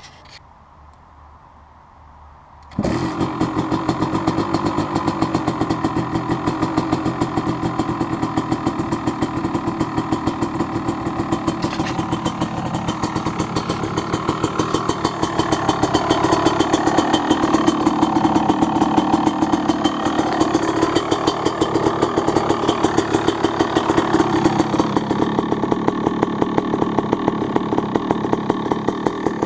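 A 2017 Husqvarna TC250 two-stroke engine, fitted with an FMF Factory Fatty header and a Pro Circuit R304 shorty silencer, starts about three seconds in and idles with a rapid, even exhaust beat. It gets a little louder in the second half.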